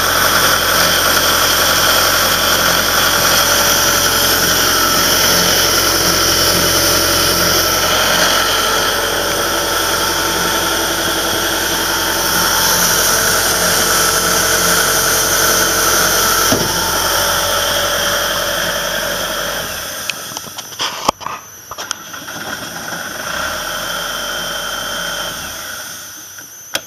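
John Deere diesel engine of an Ingersoll Rand 185 portable air compressor running steadily. About 20 seconds in the engine sound falls away, followed by a few sharp knocks.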